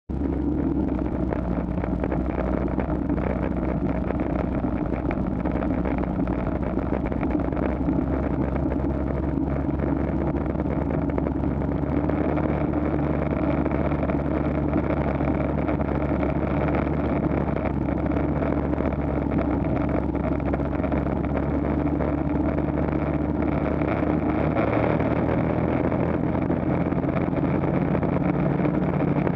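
Snowmobile engine running steadily while riding across snow. Its pitch shifts slightly a couple of times.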